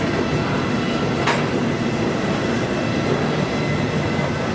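Intermodal freight cars of a Norfolk Southern container train rolling past: a steady rumble of steel wheels on rail, with faint steady high squeal lines over it and one sharp clack about a second in.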